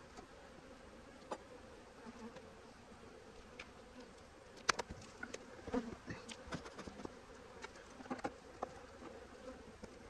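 Honey bees buzzing over an open hive as a steady, faint hum. Scattered sharp clicks and knocks from the wooden hive boxes and frames being handled, the loudest about five seconds in.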